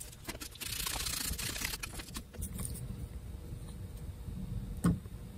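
Hands crinkling a piece of wax paper and rustling a shop towel: a soft rustle lasting about two seconds, then a single sharp click near the end.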